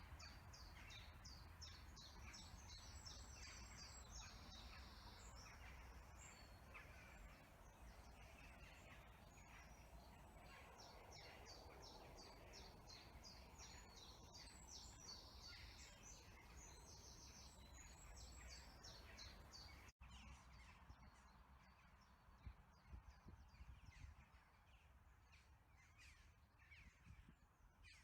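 Faint birdsong: quick, high chirps and trills repeating throughout, with a few louder calls after a cut, over a low rumble of wind.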